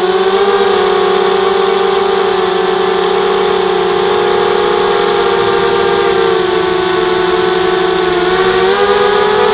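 H4 250 quadcopter's four RCtimer 2300 kV brushless motors spinning 5x3 carbon propellers, heard close up from the onboard camera as a steady buzzing whine. The pitch rises a little near the end as the throttle is opened.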